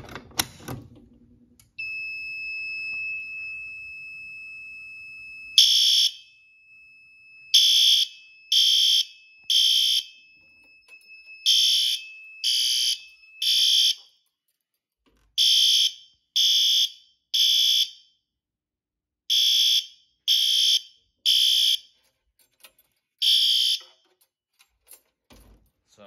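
System Sensor L-Series LED horn/strobe sounding in alarm, giving the temporal-3 evacuation pattern: groups of three short, loud horn blasts with a pause between groups, repeating. About two seconds in, a steady high-pitched beep starts and runs under the first horn groups.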